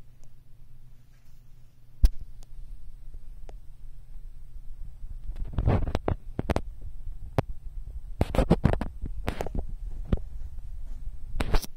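Handling noise from a hand-held phone microphone: a sharp knock about two seconds in, then bursts of low thumps and rubbing through the second half, over a low steady hum.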